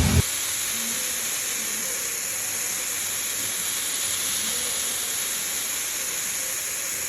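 A steady, even hiss that starts and stops abruptly.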